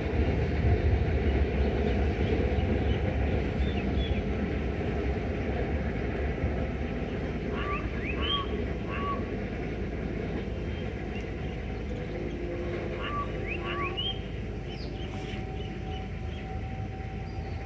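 Express train rolling away into the distance, its rumble slowly fading. A bird calls in two sets of three short rising notes partway through.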